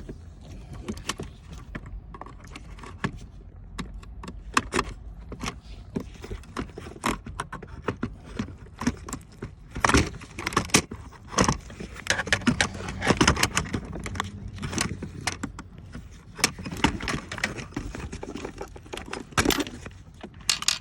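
Irregular clicks, knocks and scraping of hard plastic and metal as the gear shifter assembly is handled, unclipped and pulled out by hand, busiest in the middle.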